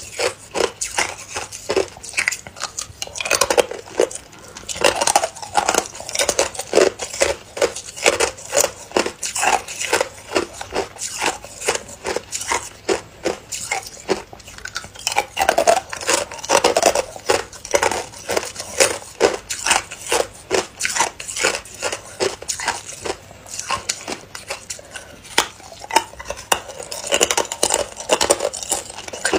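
Hard ice being bitten and crunched between the teeth: a continuous run of crisp cracks and crunches, several a second.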